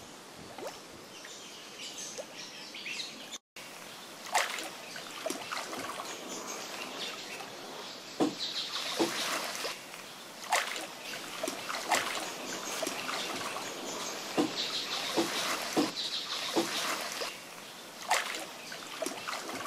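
Water splashing and trickling in irregular strokes a second or two apart, with birds chirping.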